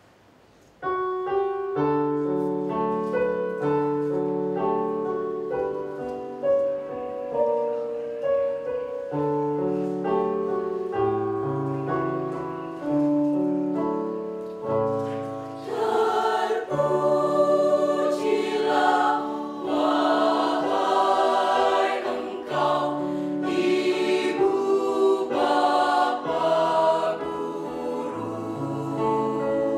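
Mixed choir of high-school boys and girls singing in several-part harmony, starting about a second in after near silence. From about halfway through the singing grows louder, with sharper accents.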